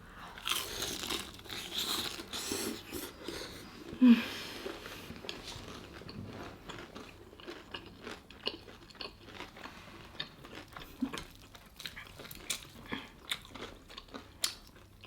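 Close-up biting into and chewing crispy-skinned Jollibee Chickenjoy fried chicken, with crunching and many small crisp clicks of the breading. There is one short louder sound about four seconds in.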